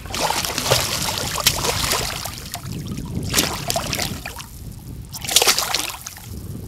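Hooked pike thrashing at the water surface and splashing. A long flurry of splashing fills the first two seconds, and two more hard splashes come about three and a half and five and a half seconds in.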